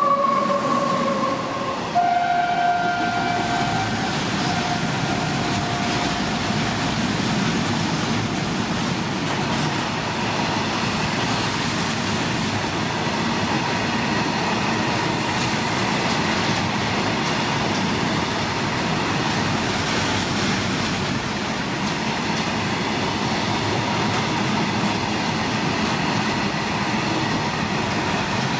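Indian Railways train sounding its horn: one note that stops about a second and a half in, then a second, higher blast from about two seconds in that fades out by about seven seconds. After that the steady noise of the train running past continues to the end.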